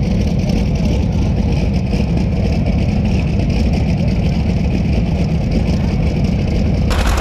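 Light modified pulling tractor's engine idling steadily.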